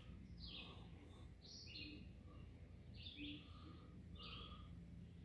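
Faint bird calls: a short chirp repeated roughly once a second.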